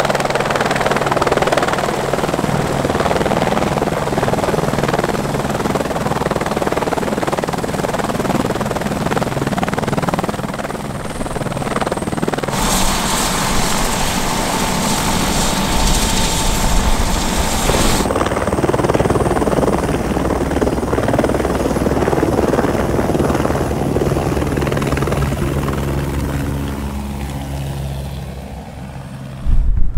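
Helicopter arriving close by, its rotor and engine running loud throughout. About halfway through, a rush of noise across all pitches lasts for roughly five seconds.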